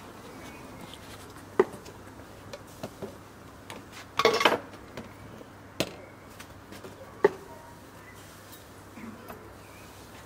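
Kitchen tools and containers being set down on a prep table and cutting board: a few separate knocks, with the loudest, a short clatter, about four seconds in.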